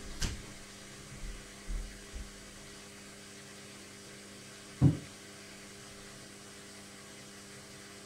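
Logik front-loading washing machine running near the end of its cycle with a steady electric hum. A few low thumps come in the first couple of seconds, and one much louder thump comes about five seconds in.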